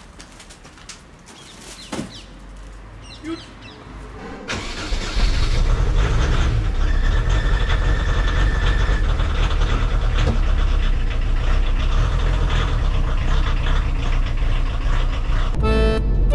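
A van engine, likely the VW T3 carrying the pizza oven, starts about four and a half seconds in and then runs steadily with a deep rumble. A few light clicks and knocks come before it.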